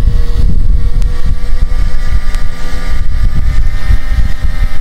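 XK K110S micro RC helicopter in flight, its brushless motor and rotors giving a steady thin whine. Heavy wind buffeting on the microphone is the loudest sound.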